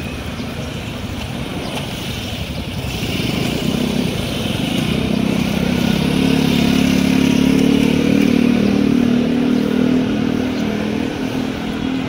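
Road traffic, with one motor vehicle's engine drone building about four seconds in, loudest in the second half, then easing off near the end as it passes.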